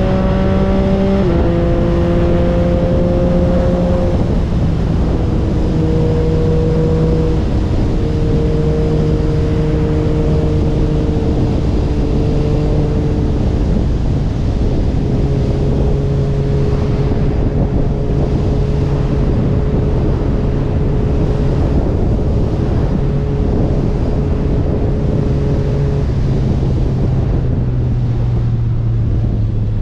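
Motorcycle engine running at road speed, its note easing down in pitch in several steps over the stretch, under heavy wind rush on the camera microphone.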